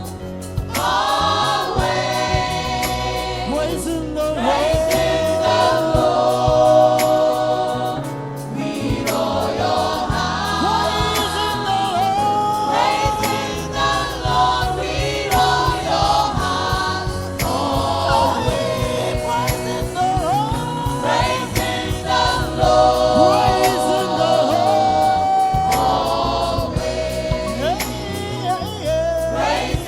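Gospel choir singing a praise song with band accompaniment and a steady beat.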